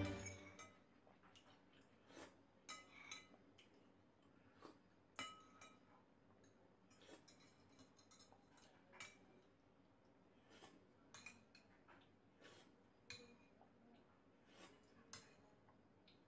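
Faint, scattered clinks of a metal spoon and fork against a ceramic plate while eating, one every second or two, with near silence between them.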